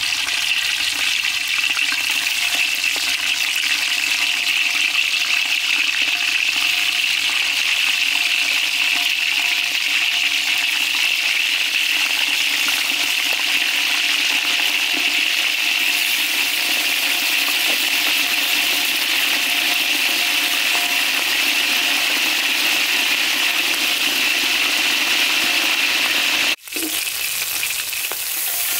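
Whole frogs frying in hot oil in a wok: a steady, dense sizzle and crackle. It cuts out suddenly for a moment near the end, then resumes.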